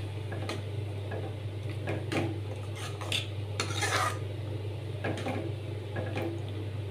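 A metal spoon stirring wet dal and drumstick leaves in an aluminium kadai, with irregular clinks and scrapes against the pan, over a steady low hum.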